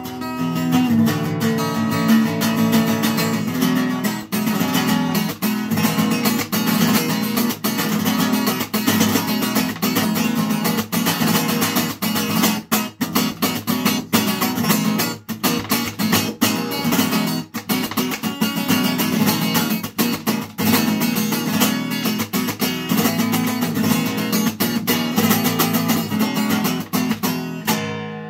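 Capoed acoustic guitar played with busy, rhythmic strummed and picked chords, the last chord ringing out and fading near the end.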